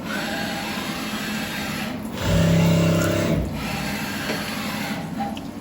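CNC milling machine running a tapping cycle with an M4 tap, over a steady hiss. About two seconds in, the spindle motor gives a loud steady hum for just over a second, then drops back.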